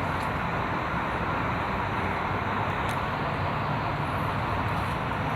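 Steady outdoor background noise: a constant, even roar with a low hum underneath.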